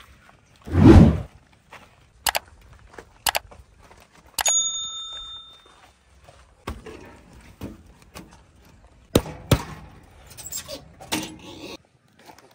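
A heavy thump about a second in, then scattered sharp knocks and clicks, with a short ringing ding about halfway through.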